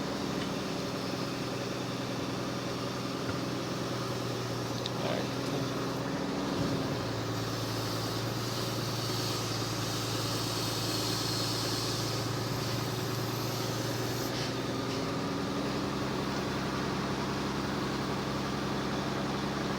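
Truck's diesel engine running steadily while it powers a Munck GFT 10.000 forestry knuckle-boom loader crane. Its pitch shifts slightly about six seconds in and again near fifteen seconds.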